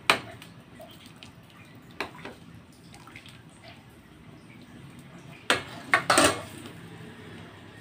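Metal spoon stirring a stainless steel pot of chicken and green papaya broth: the liquid sloshes softly, with sharp clinks of the spoon against the pot, once at the start, twice about two seconds in, and a louder cluster near the end.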